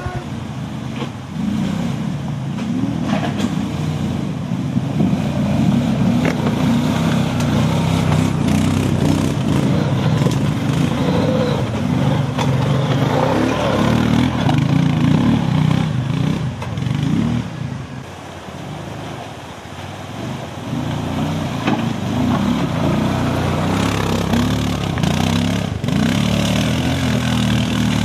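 Off-road 4x4's engine working hard, revving up and down continuously, easing off for a few seconds past the middle before picking up again.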